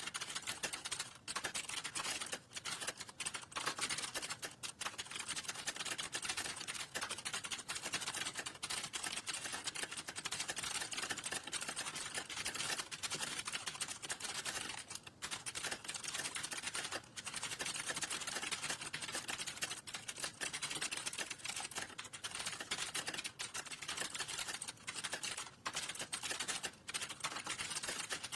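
Fast, continuous typing on a computer keyboard, keys clattering with a few brief pauses.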